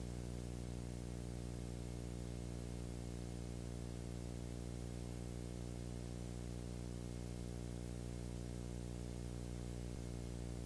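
Steady electrical hum: a low buzz with many evenly spaced overtones over a faint hiss, unchanging throughout.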